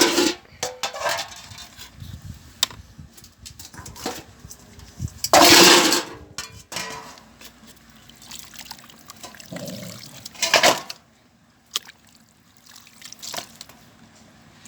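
Dogs eating soft boiled chicken heads: wet chewing and slurping with small clicks, and a louder burst of noise about five seconds in and again around ten seconds.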